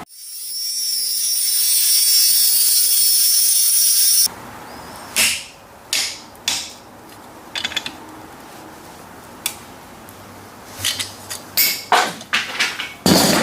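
A shop tool runs with a loud, steady high hiss for about four seconds, then cuts off. Scattered knocks and clatter follow, the last few in a quick cluster near the end.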